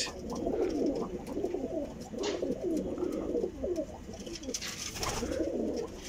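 Domestic pigeons cooing, several low coos overlapping one another without pause.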